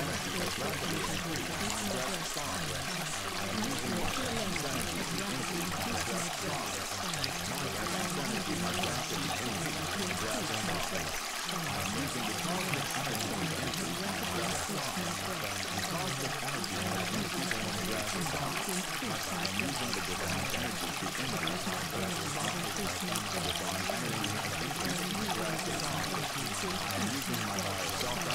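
Steady running water, like a flowing stream, unbroken throughout.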